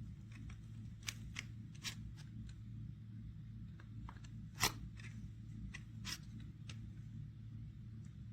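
Scattered light clicks and taps, the sharpest about four and a half seconds in, over a steady low hum.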